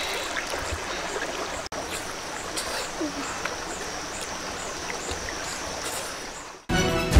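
Outdoor background of steady rushing, like running water, with small scattered clicks and a run of about two high chirps a second in the middle. Music starts near the end.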